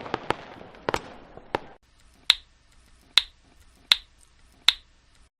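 Crackling firecracker-like pops that stop about two seconds in, followed by four sharp finger snaps, evenly spaced a little under a second apart.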